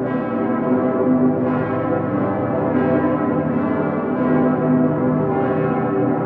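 The full festive peal of Cologne Cathedral's bells, Dicker Pitter among them: many large church bells swinging and striking at once, their strokes overlapping into one continuous, dense ringing.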